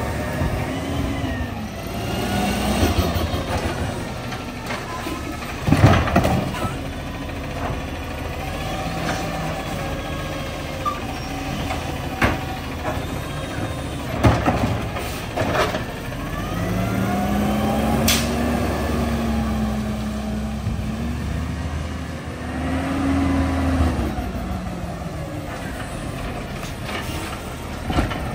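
Side-loader garbage truck working: its engine revs up and falls back several times, with sharp clunks and bangs scattered through. The loudest bang comes about six seconds in.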